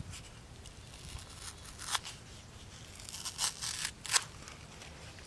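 Cardboard mold ring being peeled and pulled away from a set plaster cast, making short papery tearing noises in a few bursts, the sharpest about four seconds in.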